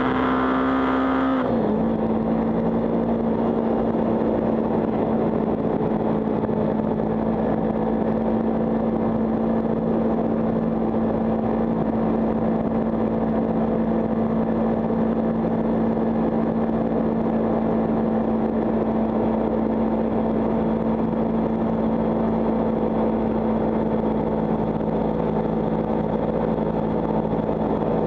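Kawasaki Ninja 300 parallel-twin engine running at steady revs, heard from a camera mounted on the bike, over a constant rush of wind noise. The engine note drops a little about a second and a half in, then holds steady.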